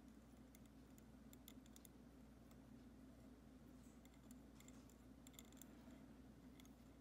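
Near silence: a low steady hum with scattered faint ticks as tying thread is wrapped from a bobbin holder around a fly hook in a vice.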